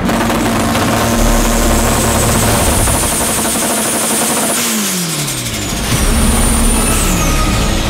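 Engine of a turbocharged EK Honda Civic drag car held at steady revs with a high turbo whistle over it, then the revs fall away about halfway through. It is revved again briefly and falls off once more near the end.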